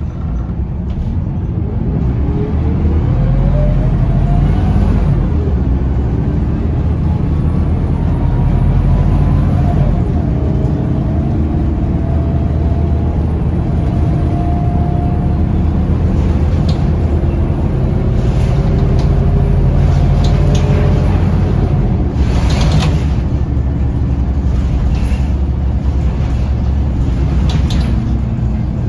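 Scania L94UB diesel bus, heard from inside the cabin, pulling away through its ZF automatic gearbox. The whine of its hub-reduction rear axle climbs in pitch over the first ten seconds and then holds steady at cruising speed. Several knocks and rattles from the body come in the second half, the loudest about two-thirds of the way through.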